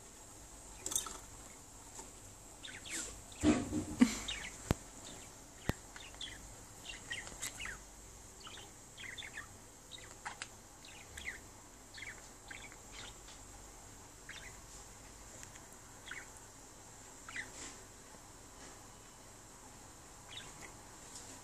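Budgerigars chirping softly in short, scattered calls, with a louder knock about three and a half seconds in.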